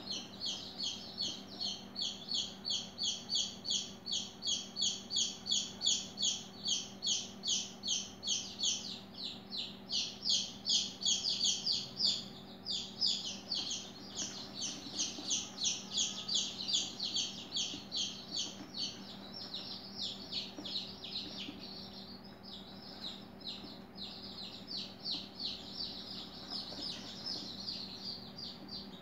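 Rapid, even series of short high-pitched chirps, about three or four a second, louder in the first half and weaker later on, over a faint steady low hum.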